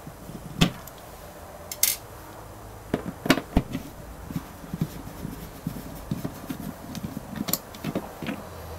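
Scattered clicks, taps and light knocks of a plastic Nord Elettronica NE190 control panel being handled as its retaining screws come out and it is eased out of its wall housing. The sharpest knocks come about half a second and three seconds in, with smaller ticks after.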